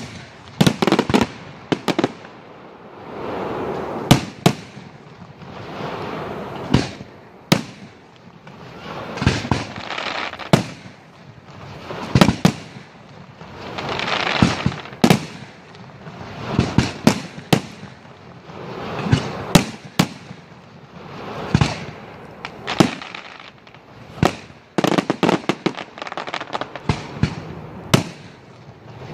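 Aerial fireworks display: shells bursting with sharp bangs every second or so, some in quick strings, with hissing and crackling between the bursts.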